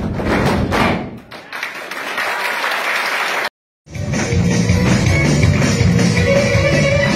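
Folk dancers' boots stamping in rhythm on a wooden stage over music, fading into a few seconds of applause. Then the sound cuts out briefly and music with guitar starts for the next dance.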